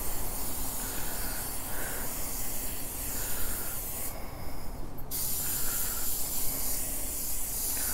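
Aerosol cooking-oil spray hissing onto a kamado's cast charcoal grate to season it, in two long sprays with a short break about four seconds in.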